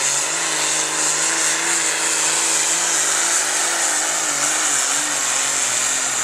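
Case farm tractor's diesel engine running flat out under heavy load while pulling a weight-transfer sled: a loud, steady drone whose pitch wavers slowly up and down.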